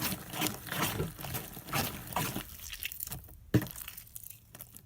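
Sticky slime being squished and kneaded by hand as laundry detergent is worked in, giving a run of wet clicking squelches that thin out about halfway, with one sharp click near the end.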